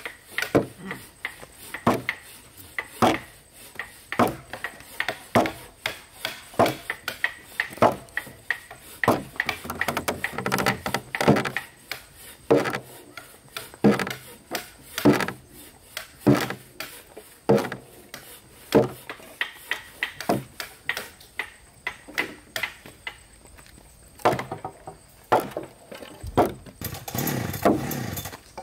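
Woodworking tools striking timber: a long run of sharp, irregular knocks, about one or two a second, with a few seconds of rougher continuous noise near the end.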